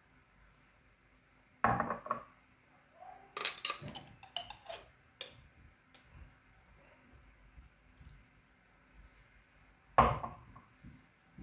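Metal spoon knocking and clinking against a stainless steel pressure cooker pot as paste is scraped off into it: a sharp knock about two seconds in, a quick run of clinks around four seconds, and another loud knock near the end.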